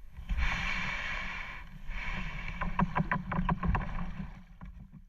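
Kayak paddling sounds: a rush of splashing water, then a quick run of short knocks and drips from the paddle, over a low rumble.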